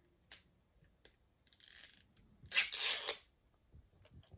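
Plastic toy packaging being torn and pulled open by hand: a small click, then two short tearing rasps, the second louder.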